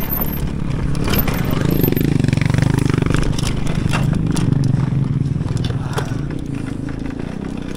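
Mountain bike riding fast down a dirt enduro trail: a steady low rush of wind on the microphone mixed with tyre rumble, with scattered clicks and rattles from the bike over rough ground.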